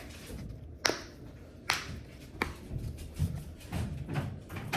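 Three sharp clicks or snaps, a little under a second apart, followed by softer handling and rustling as a small wrapped package is opened by hand.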